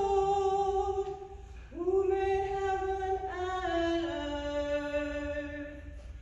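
A cantor singing a verse of the responsorial psalm in long held notes, with a short breath about two seconds in and the last phrase stepping down in pitch.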